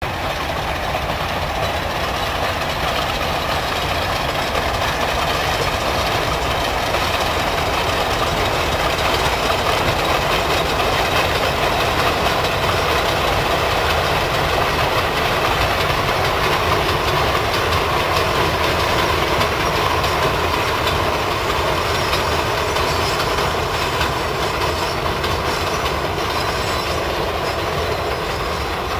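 Narrow-gauge steam-hauled brickworks train of loaded clay wagons passing, a steady running noise of wagons and wheels on the track.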